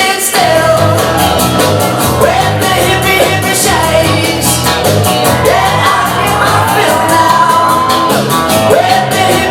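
Loud rock and roll song with a singing voice over a steady bass line and drums.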